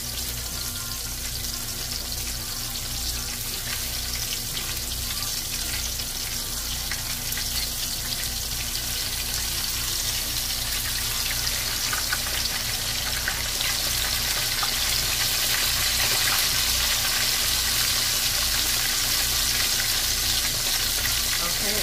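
Breaded fish fillets deep-frying in a pot of hot oil: a steady sizzle that grows louder about halfway through as a second fillet is lowered into the oil.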